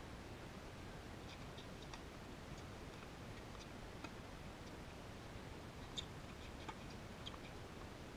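Tennis rally on an outdoor hard court: faint, scattered sharp pops of racket strings striking the ball and shoes scuffing the court, with the sharpest pop about six seconds in, over a steady low hiss.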